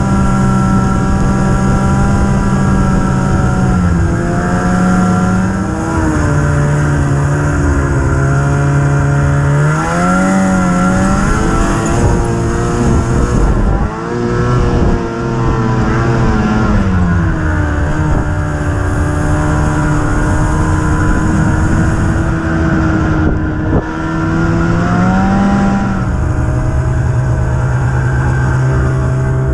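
Snowmobile engine running continuously. Its pitch holds steady at first, then falls and rises several times as the throttle changes, with two brief drops in level, one about halfway through and one near the end.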